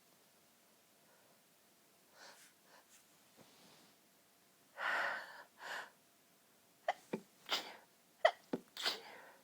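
A woman's pinched, stifled sneezes set off by a very tickly nose: faint breaths, then two long, breathy build-up gasps, then four short, sharp stifled sneezes in two quick pairs, each pair followed by a breath.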